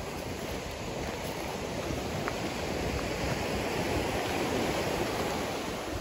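Surf washing ashore: a steady rush of small breaking waves that swells a little about halfway through.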